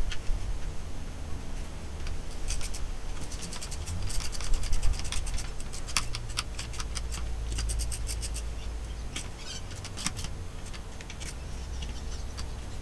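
Socket ratchet clicking in quick runs as the 12 mm bolts holding the input shaft are wound into the gearbox case, with scattered light knocks of metal on metal.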